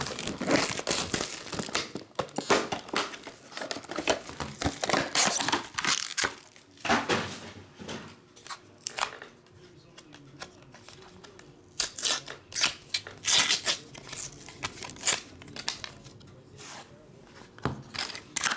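Plastic wrap being torn and crinkled off a sealed Panini Spectra trading-card box, with cardboard rustling as the inner box is opened and the cards slid out. It comes in bursts of tearing and crinkling, quieter for a few seconds in the middle.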